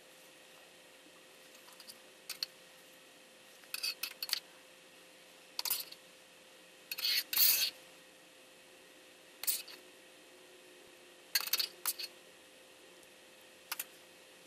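A metal spoon scraping fig jelly out of a metal saucepan and spreading it on a slice of bread, with crinkling from thin plastic gloves: a handful of short scraping and rustling sounds, the loudest a little past the middle, over a faint steady hum.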